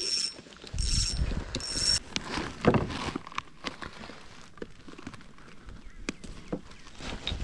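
Spinning fishing reel being cranked in three short bursts, a thin high whine from its gearing. These are followed by scattered light clicks and knocks of handling gear on a plastic kayak.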